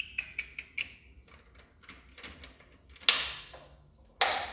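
Power switch of a 1987 Toshiba Premage CRT television being worked by hand: a run of small quick clicks in the first second, then two sharp loud clicks about a second apart near the end. The set does not come on, a fault the owner puts down to its power supply.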